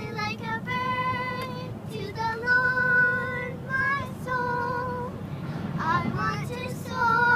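A high-pitched voice singing a string of long held notes with a slight waver and short breaks between them, over a low steady hum.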